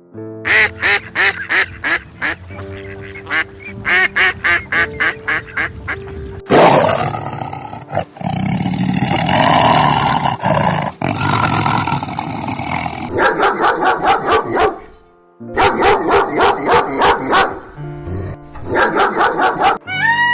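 Runs of short, rapidly repeated animal calls over steady background music, several different animals in turn, with a dense, noisy stretch in the middle.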